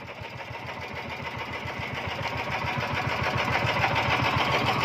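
Outrigger fishing boat's small engine running with a fast, even chugging, growing steadily louder.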